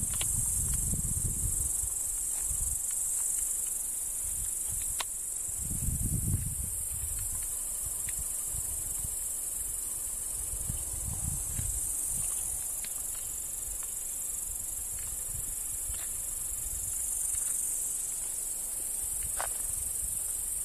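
Crickets chirring in a continuous high-pitched drone, with low gusty rumbles of wind on the microphone coming and going, strongest about six seconds in.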